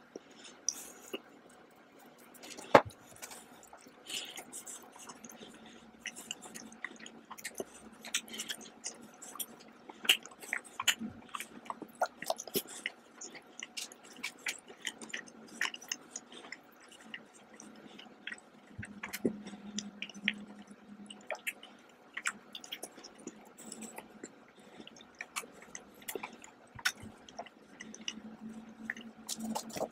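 Close-up chewing of milk chocolate with cranberries and hazelnuts: wet mouth smacks and many short sharp clicks throughout, the sharpest about three seconds in.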